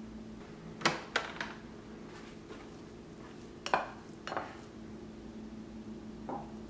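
Light clinks and knocks of a plastic rice paddle against a rice cooker's inner pot and a ceramic bowl as cooked rice is scooped and served: about six sharp taps in three small clusters, over a steady low hum.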